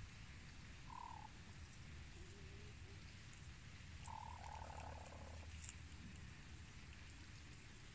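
Faint, low, croaky calls from chickens: a short call about a second in and a longer, drawn-out one about four seconds in, over a low steady rumble.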